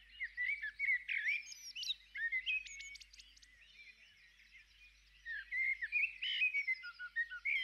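Recorded chorus of tropical birds chirping and whistling, many quick overlapping calls. It is the wake-up sound of a Lumie Bodyclock Glow 150 sunrise alarm clock, playing at its alarm time.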